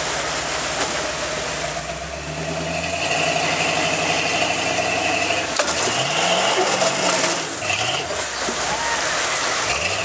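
Lifted full-size 4x4 truck engine pulling hard and revving up several times as it crawls over waterfall rock ledges, against the steady rush of falling water.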